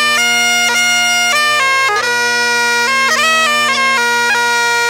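Highland bagpipes playing: the chanter plays a melody of held notes broken by quick grace-note flourishes over a steady, unbroken drone.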